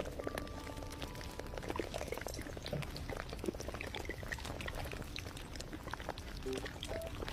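Handmade paper-and-tape squishy being squeezed and pressed, a dense crinkly crackle of many small clicks, with soft background music notes near the start and end.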